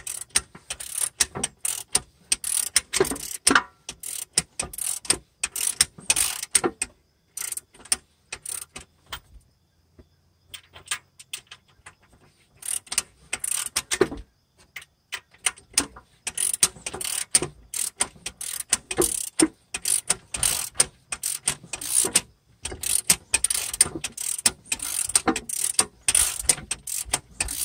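Ratchet wrench clicking in bursts, turning a Toyota 22R-E engine over by hand with its valvetrain exposed. There is a pause of a few seconds about ten seconds in.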